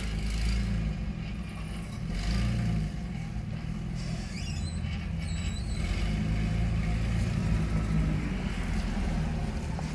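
Steady low rumble of vehicle noise, with a faint rising squeak about four and a half seconds in.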